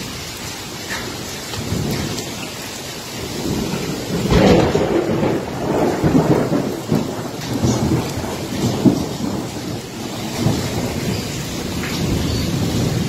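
Heavy rain pouring down in a thunderstorm, with a rumble of thunder swelling about four seconds in and lasting about five seconds before easing.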